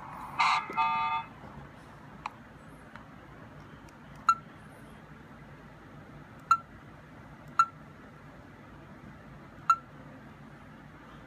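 Electronic beeps from a homemade Space: 1999 commlock replica prop: a short chirp of several stacked tones near the start, then several short single blips one to two seconds apart as its button is pressed to step through the pictures on its screen.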